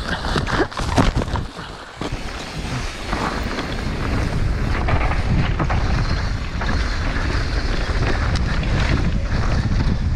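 Wind buffeting the microphone on a mountain bike riding downhill on a dirt trail, mixed with tyre noise and rattling from the bike. There are several sharp knocks about a second in, then a steady rush.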